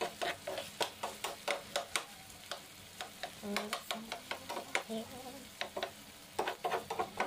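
Diced potatoes sizzling as they fry in oil in a frying pan, stirred with a metal spoon that clicks and scrapes against the pan about two or three times a second.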